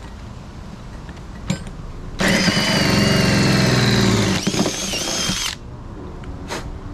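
Power drill with a hole saw cutting into a thick fiberglass boat deck, running in one burst of about three seconds. Shortly before it stops, its whine steps up in pitch and the sound eases. There is a short click before it starts and another after it stops.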